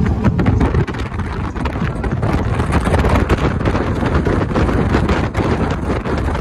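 Wind buffeting the microphone from a moving car, with the car's engine and road noise underneath: a loud, steady rush broken by frequent crackles.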